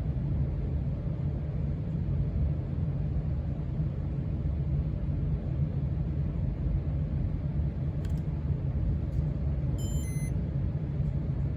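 1993 Casablanca Stealth ceiling fan running steadily, a low rumble of its motor and moving air. About eight seconds in there is a faint click, and around ten seconds in a quick run of short high electronic beeps.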